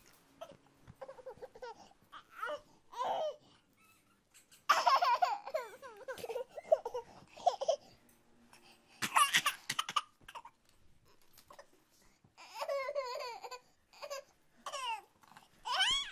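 A baby babbling and laughing in high-pitched bursts of a second or two, loudest about five seconds in and again near ten seconds.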